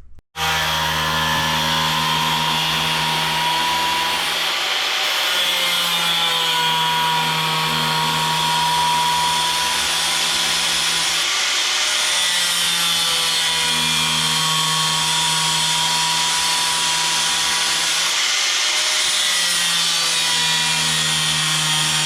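Power tool working sheet metal, running steadily for a long stretch. The hum underneath comes and goes every few seconds, and a higher tone wavers as the load changes.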